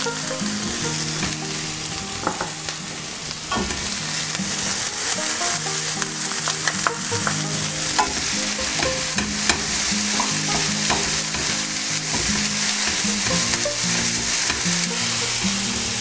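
Diced bell pepper, onion and chili sizzling in olive oil in a stainless steel frying pan, stirred with a wooden spatula that scrapes and taps against the pan many times.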